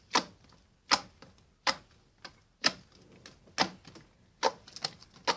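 Homemade slime, a bit stiff, worked by hand and making a series of sharp clicking pops, roughly one a second.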